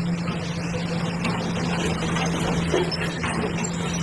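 Hydraulic excavator's diesel engine running steadily.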